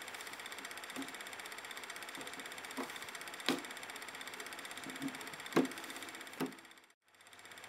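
Fast, even mechanical rattle of a simulated 8mm film projector, with about six sharp knocks at uneven intervals, the loudest halfway through and again about two seconds later. The rattle cuts out briefly near the end, then returns.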